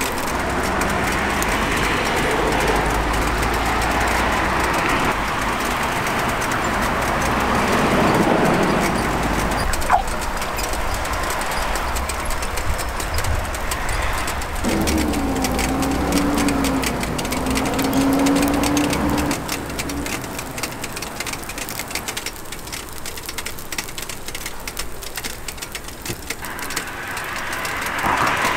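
Hotteok batter frying in oil on a flat steel griddle, a steady sizzle, with street-stall noise and a low hum under it.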